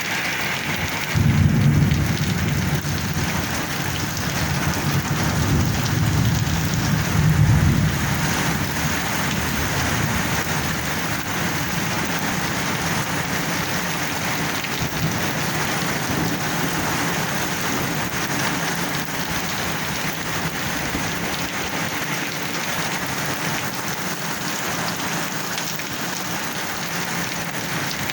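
Heavy rain falling steadily. A roll of thunder starts about a second in, swells again around seven seconds, and fades by about ten seconds.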